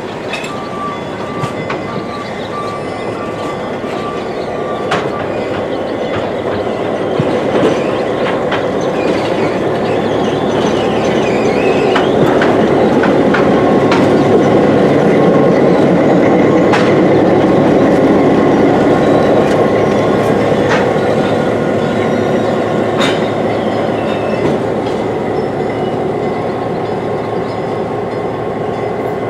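A train rolling past, its cars clattering over the rails with scattered sharp clicks. The rumble builds to a peak about halfway through and then slowly fades.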